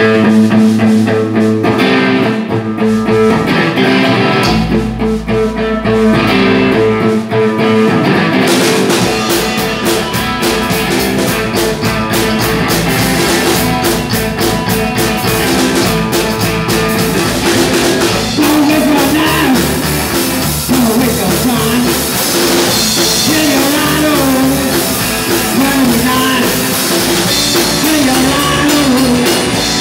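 A live rock and roll band playing an upright double bass, guitar and drum kit. For the first eight seconds or so the bass and guitar play without the drums. The drum kit then comes in, and a man's singing joins from about eighteen seconds in.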